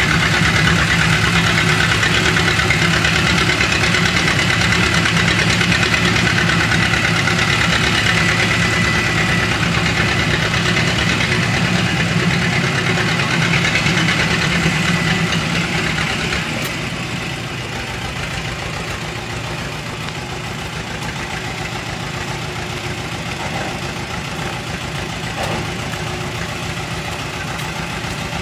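Fortschritt T174/2's diesel engine running with an even, pulsing beat as the machine drives off, turning quieter about halfway through as it pulls away.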